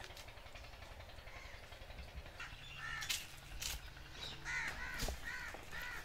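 A crow cawing repeatedly, a run of about six short, harsh caws starting about halfway through, with a few short clicks among them.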